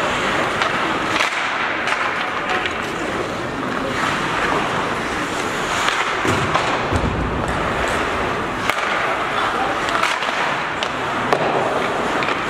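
Ice hockey play on an indoor rink: skate blades scraping and carving across the ice, with sharp clacks of sticks on the puck and ice scattered throughout. A brief low rumble comes about six seconds in.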